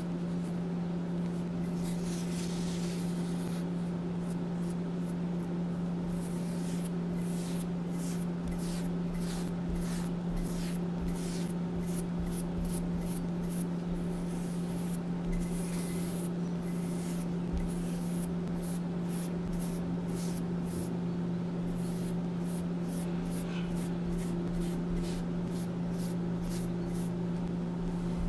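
A paintbrush sweeping powdered gym chalk across a flat stone mortar: repeated short bristly swishes, a few a second for most of the time, over a steady low hum.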